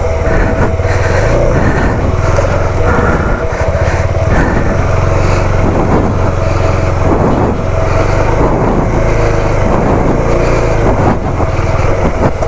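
Motorcycle engine running as the bike is ridden, a loud, steady rumble whose pitch rises and falls now and then.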